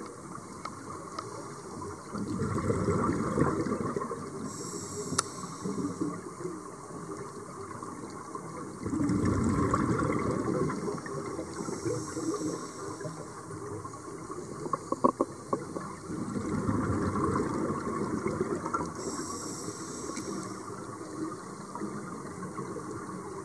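Scuba breathing heard underwater: the rumbling bubble rush of exhaled air from a regulator comes in three long surges about seven seconds apart, with fainter hissing between them and a few sharp clicks a little past the middle.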